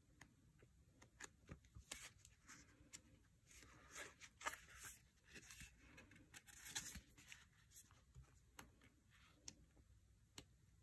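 Faint handling of paper sticker sheets and book pages: scattered light ticks and taps, with short rustles about four and seven seconds in.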